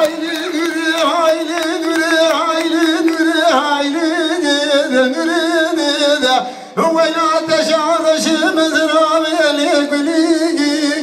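A man singing through a microphone in long, ornamented held notes, breaking off briefly about six and a half seconds in.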